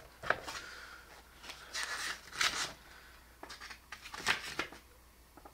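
Paper rustling and light handling noises as a folded paper instruction leaflet is taken out of the packaging and unfolded, in several short bursts.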